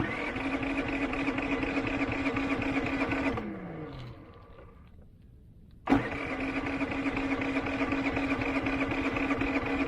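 Predator 3500 inverter generator's single-cylinder engine catching suddenly and running steadily for about three and a half seconds, then winding down with falling pitch. It catches again about six seconds in and runs steadily to the end. Each time it dies on its own with the low-oil warning still showing, even though the oil is full and the oil sensor has been unplugged.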